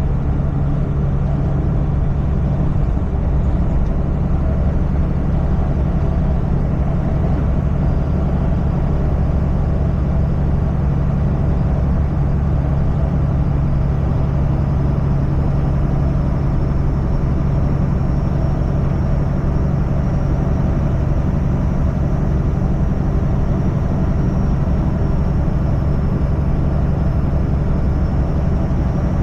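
Semi-truck diesel engine and road noise heard from inside the cab while cruising: a steady, unbroken low drone.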